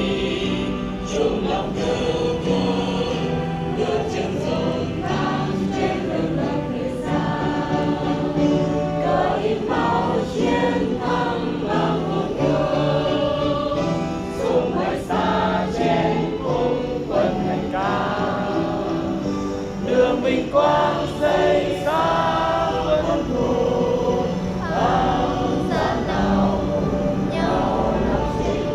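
A group of young people singing a Vietnamese song together in unison over backing music.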